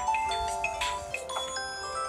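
Smartphone ringtones playing over each other: an Android phone's incoming-call ringtone and a Samsung phone's alarm tone, bell-like electronic melodies at several pitches at once.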